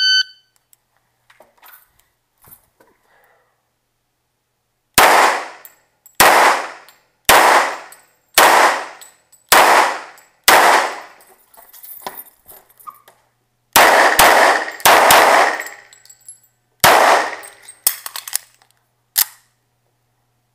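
A shot timer's start beep, then about a dozen handgun shots fired singly, roughly a second apart, with a short pause midway. Each shot rings on for most of a second.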